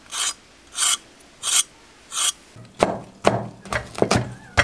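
A cleaver scraping the skin off a cucumber in four even rasping strokes. In the last two seconds it chops the cucumber on a wooden board, about six quick knocks.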